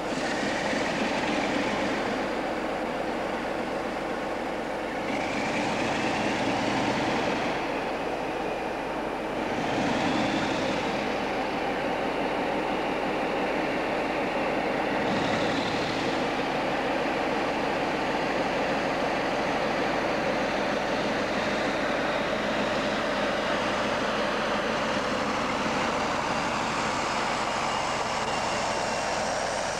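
Class 47 diesel-electric locomotive with a Sulzer twelve-cylinder engine, running and then pulling away with its train. A thin high whine rises in pitch over the last few seconds.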